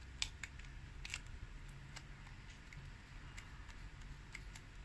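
Scattered light clicks and taps of gloved hands handling an opened Vivo Y12 smartphone's plastic frame and battery, the sharpest about a quarter second and a second in, over a low steady hum.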